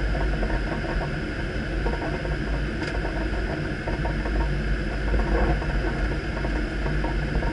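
Airliner flight-deck noise on final approach: a steady rush of airflow and engine noise with a heavy low rumble, and a faint steady high whine over it. A small click sounds about three seconds in.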